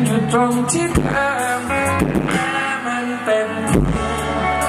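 Live band performance: a male voice singing over electric guitar, bass guitar and drums.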